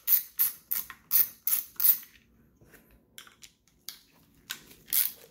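Small socket ratchet clicking about four times a second as it backs out a distributor cap screw, stopping after about two seconds. A few light metallic clicks and taps follow as the distributor and cap are handled.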